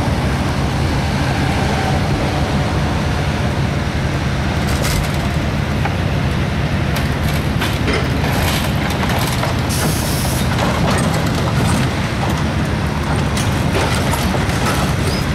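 Heavy diesel machinery running steadily with a deep, even hum. From about halfway through, scattered metal clanks and cracks join it as burnt truck wreckage is handled.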